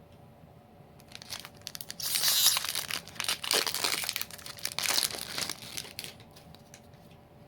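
Crinkly packaging, such as a Magic: The Gathering booster pack's foil wrapper, being torn open and crumpled by hand. It starts about a second in, is loudest for a few seconds in the middle and dies away near the end.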